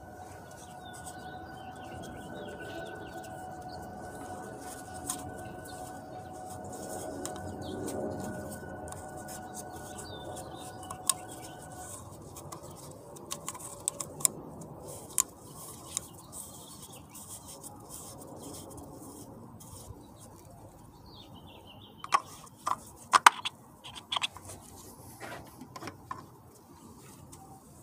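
Faint birds chirping in the background, with a steady two-note hum that stops partway through. About three-quarters of the way in comes a cluster of sharp plastic clicks and knocks as the oil filter housing cap and cartridge filter are handled.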